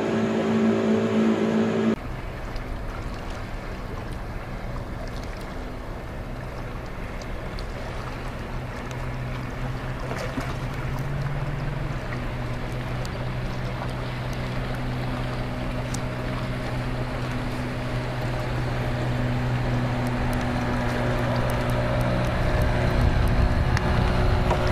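Outboard motor pushing a small pontoon floathouse across open river water, a steady drone that slowly grows louder as the boat comes past. Wind rumbles on the microphone near the end. The first two seconds hold a louder, steadier hum that cuts off suddenly.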